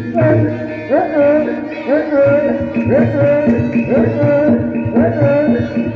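Javanese barongan accompaniment music: hand drums with a melodic phrase that swoops up and then holds, repeating about once a second.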